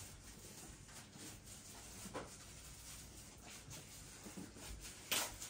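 Faint rustling and rubbing of things being handled, a few soft rustles with the loudest one just after five seconds in.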